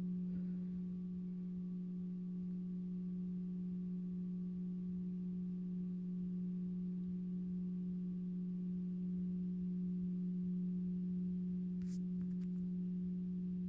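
A steady low hum, one unchanging tone with a fainter overtone above it, with a couple of faint clicks near the end.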